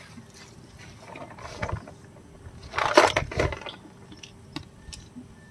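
Fishing reel being cranked, ratchety clicking from the reel as a hooked catch is wound in, with a louder rushing burst about three seconds in.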